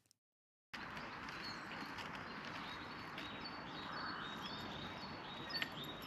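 Outdoor ambience that starts after a moment of silence: a steady background hiss with small birds chirping over and over.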